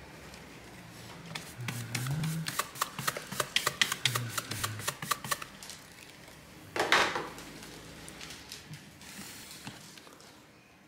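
A quick, irregular run of small sharp clicks and taps, then one short scrape or rustle about seven seconds in.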